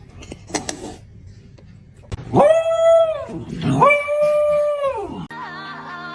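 A dog howling: two long, held howls a moment apart, each rising at the start and dropping away at the end.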